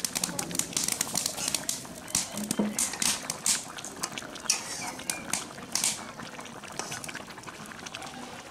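Fish curry boiling hard in a kadai over a wood fire, bubbling and spitting in quick crackles, while a metal spatula stirs it.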